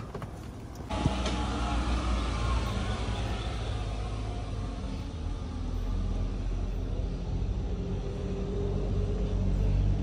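A vehicle engine running steadily with a low rumble, starting abruptly about a second in.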